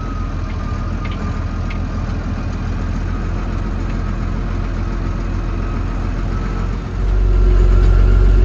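Farm vehicle engine running steadily at a low drone, then getting suddenly louder about seven seconds in as it is throttled up to drive off with the hay bale.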